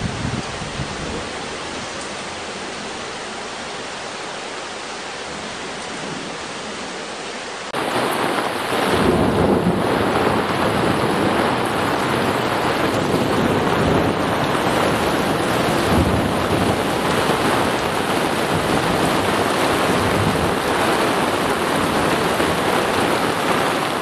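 Steady rain falling. About eight seconds in it switches abruptly to louder, heavier rain, with low rumbles of thunder rolling beneath it, the strongest about two seconds after the switch.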